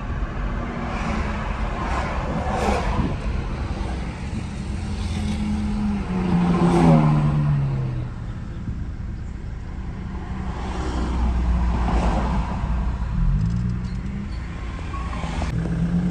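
Road traffic: a steady engine hum, with vehicles passing about four times. The loudest pass comes about halfway through, its engine note dropping in pitch as it goes by.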